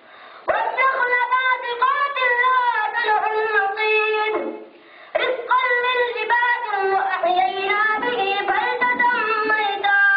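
A high solo voice singing long, gliding melodic phrases without accompaniment, two phrases with a short pause between them.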